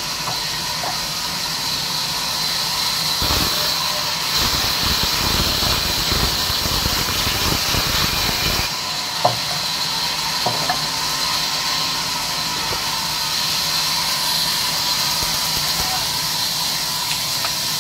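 Large sawmill band saw running with a steady high hiss; from about three seconds in, for around six seconds, the sound grows fuller and rougher as the blade rips lengthwise through a log, taking off a plank. A single sharp knock comes just after the cut.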